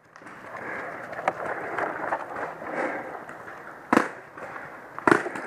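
Paintball markers firing: a faint shot a little over a second in, then two loud sharp pops about a second apart near the end, over a steady rushing noise.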